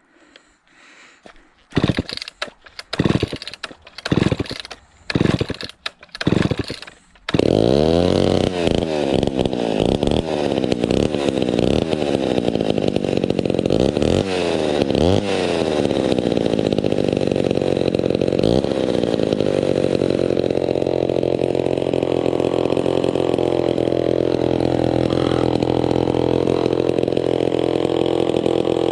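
Homelite XL12 two-stroke chainsaw with a custom exhaust being cold-started on choke. Several pulls of the starter rope come in short loud bursts, then it fires and keeps running about seven seconds in. It is revved up and down a few times, then settles into a steady run.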